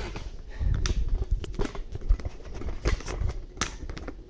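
Irregular clicks, taps and low bumps of hands working inside the open carriage of an HP DeskJet printer, cleaning its cartridge contacts. The sharpest tap comes about two seconds in.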